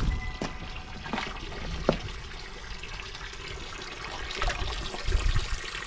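Water trickling steadily into a garden pond, with a few faint clicks.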